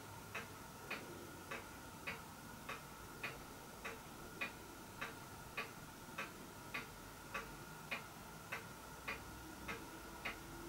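Regular ticking, a little under two ticks a second, faint and even, over a faint steady high hum.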